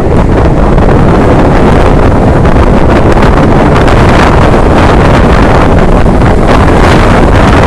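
Storm-force wind gusts from the remnants of Hurricane Sandy, battering the microphone: loud, dense wind rumble with no let-up.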